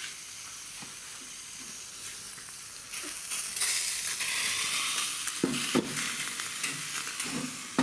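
Sizzling hiss from a hot light-alloy kazan with samsa baking on its walls, lifted and turned upside down over a gas burner. The hiss grows louder about three seconds in, and a few metal knocks come in the second half as the kazan is handled and set on the stove grate.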